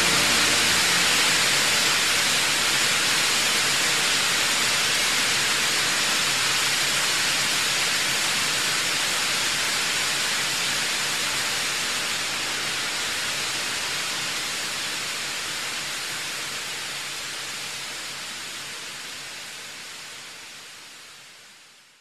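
Steady rushing of a waterfall, an even hiss with no tones, slowly fading and dying away near the end.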